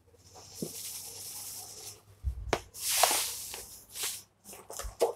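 Granulated sugar poured from a paper bag into a measuring cup with a soft hissing trickle, then tipped from the cup onto cranberries in a pot in a louder rush around the middle.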